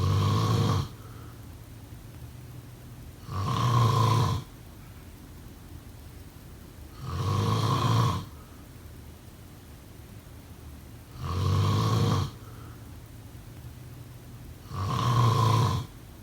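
A sleeping person snoring in a steady rhythm: five loud snores, one about every three and a half seconds, each lasting about a second.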